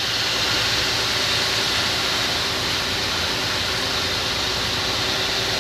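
Steady road noise inside a semi-truck cab on a slushy highway: an even hiss of tire spray over a low engine and tire rumble.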